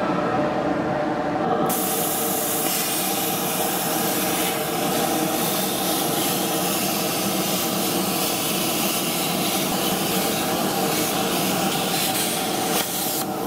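Plasma cutter torch cutting through steel channel: a loud, steady hiss that starts about two seconds in and cuts off suddenly just before the end. A steady motor hum from the 1-horsepower dust collector used as the fume extractor runs underneath.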